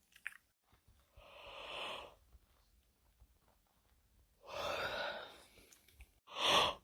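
A person yawning: three long, breathy breaths with no voice in them, about a second in, about four and a half seconds in, and a shorter, louder one near the end.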